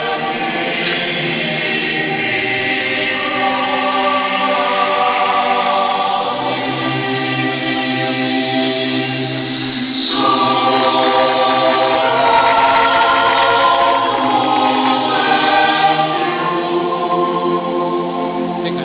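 Background music: slow choral music with long, held chords that change about halfway through.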